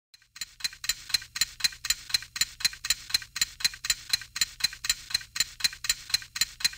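Steady, even ticking like a clock, about four sharp ticks a second, starting about half a second in.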